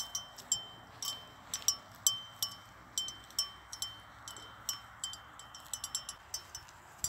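Small metal chimes tinkling, struck at uneven intervals a few times a second, each strike leaving a short high ringing tone.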